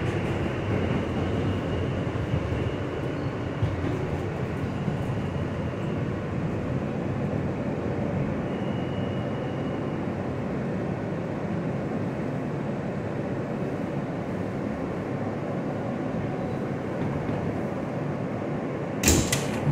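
R160 subway car rolling along the track, with a steady rumble of wheels and running gear heard from inside the car as it pulls into a station. A sudden loud clunk comes near the end.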